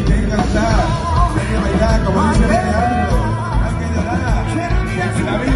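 A live funk-rock band playing loud, amplified: electric and acoustic guitars, bass, violin and drums with congas, over a steady beat with a wavering melody line on top.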